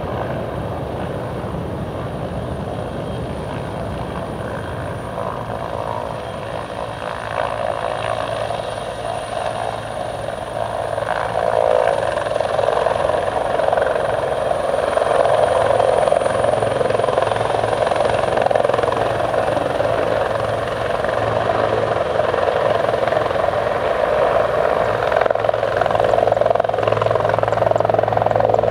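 Turbine police helicopter hovering low a few metres off the ground, its rotor and engines making a steady, loud noise with a thin high whine above it. The noise grows louder about halfway through as the helicopter turns.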